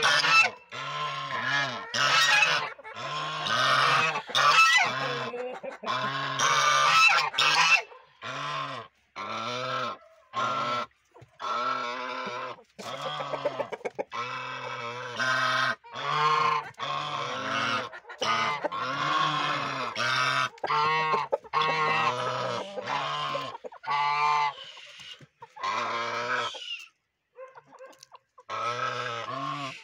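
Domestic geese honking, many short calls in quick succession with only brief gaps and a short lull near the end.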